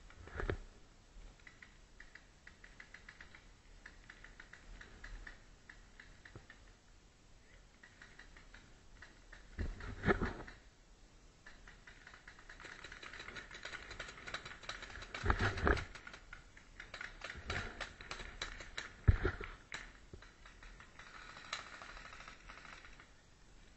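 Air-powered skirmish guns firing: a rapid, irregular stream of sharp clicks and pops that grows thicker from about halfway on. Three heavy thumps stand out as the loudest sounds.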